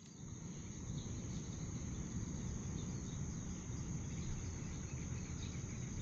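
A steady, high-pitched drone of insects over a low rumble, with a few faint chirps.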